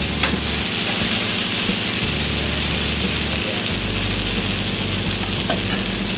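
Besan-coated okra sizzling steadily in hot oil in a kadhai, stirred with a spatula that scrapes the pan a few times. The okra is fried to about 80% done.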